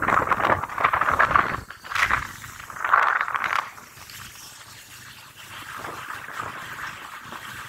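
Wind rushing over the microphone on a moving motorcycle, loud and gusty for the first three and a half seconds, then dropping to a quieter, steady rush.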